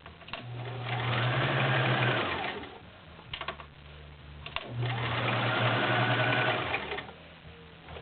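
Kenmore model 1755 all-metal sewing machine with a 1.2 amp motor, stitching through 5 layers of rubber-backed woven upholstery. It makes two runs, each speeding up and then slowing, with a short pause and a few clicks between them.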